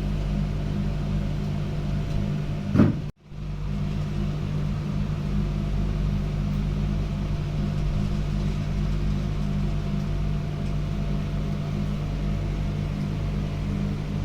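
Steady low mechanical hum. About three seconds in it swells briefly, cuts out for a split second, then carries on unchanged.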